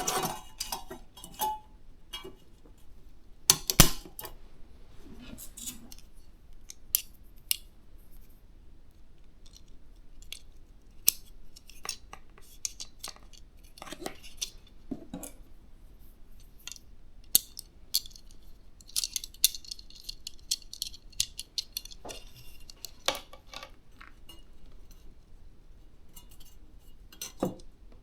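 Small clicks, taps and clinks of computer parts and hardware being handled during a PC assembly, with a louder knock about four seconds in and a short rustle about two-thirds of the way through.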